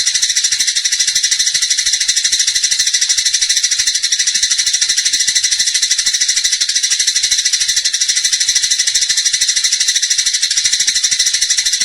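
Long-tailed shrike (cendet) singing energetically, a continuous high-pitched, very fast rattling chatter without a break.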